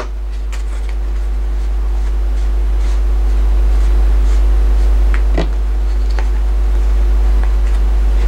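Steady low electrical hum with a few faint steady tones above it, and occasional soft clicks from tarot cards being handled, the clearest about five seconds in.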